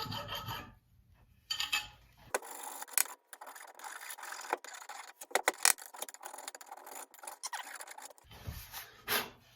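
Hand tool scraping over wood, trimming the protruding wedge flush at the top of the axe handle, in uneven back-and-forth strokes with a few sharp clicks.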